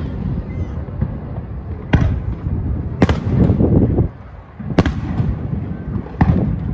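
Fireworks display: four sharp bangs of shells bursting, about two, three, five and six seconds in, over a continuous low rumble.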